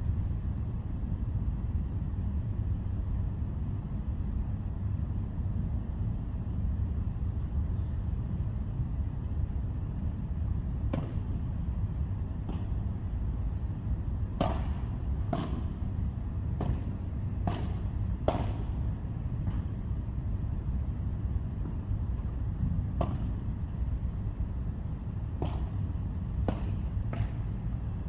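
Padel rally: sharp pops of the ball off the rackets and court, in two runs of about one hit a second, over a steady low rumble and a faint steady high whine.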